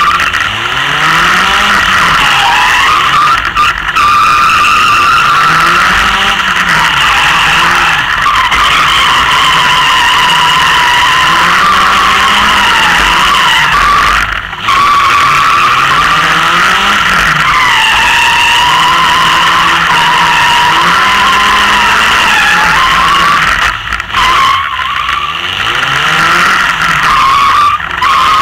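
Westfield sports car's engine revving hard, climbing and falling in pitch over and over with brief breaks at gear changes, with tyre squeal as the car is flung through the autotest turns.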